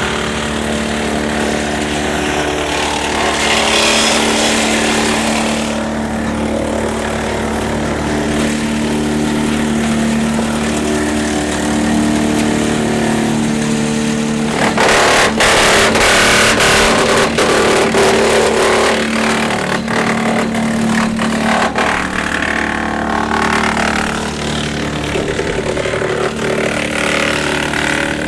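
Tractor engine running steadily, driving a Woodland Mills TF810 PRO PTO wood chipper. About halfway through, small branches go through the chipper for several seconds: a dense run of sharp cracks and crunching over the steady running.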